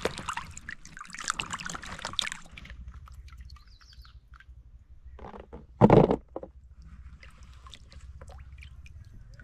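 Sweet potatoes being washed by hand in a bowl of water: water sloshing and splashing for the first two or three seconds, then light scattered knocks and drips, with one loud thump about six seconds in.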